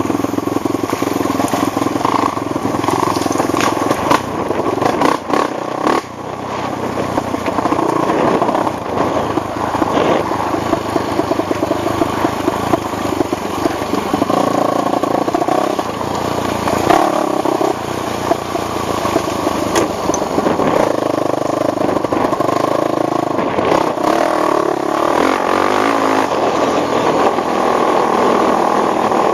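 ATV engine running under way off-road, its pitch shifting a little, with scattered knocks and rattles from the machine over rough ground.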